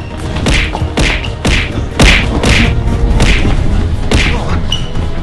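Staged fist fight: a rapid series of punch hits, about two a second, over background music with a steady low bass.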